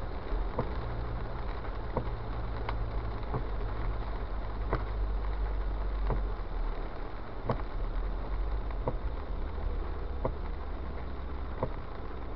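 Car driving on a wet road, heard from inside: a steady low rumble of engine and road under the hiss of tyres on wet pavement. Sharp light clicks come at a regular pace, about every 0.7 s for the first five seconds, then about every 1.4 s.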